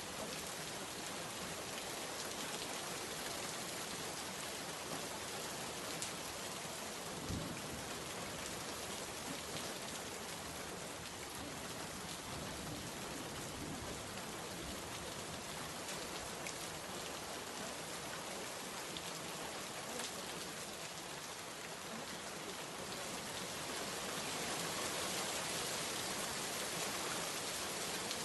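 Steady rain falling on a surface, an even hiss of many drops, with a soft low thump about seven seconds in; the rain grows a little louder near the end.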